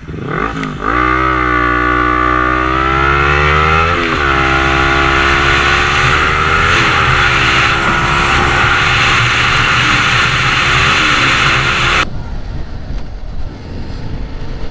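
Sport motorcycle's engine pulling away and accelerating, its pitch climbing and then dropping at gear changes, sharply about four seconds in and again later, with wind rushing over the microphone. About twelve seconds in the sound cuts to a quieter, steady engine drone.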